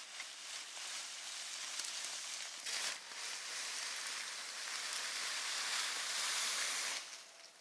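A pile of dry fallen leaves and withered bracken rustling as it is dug into and turned over with a long-handled tool. The rustling is loudest in the second half and stops shortly before the end.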